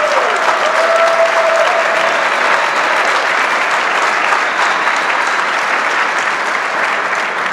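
Audience applauding, steady and starting to die down near the end.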